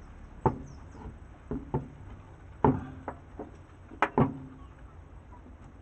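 Irregular sharp knocks and clicks as the metal housing of a car starter motor is handled and fitted together on a wooden board, about seven in all, the loudest near the start, in the middle and a little past the middle.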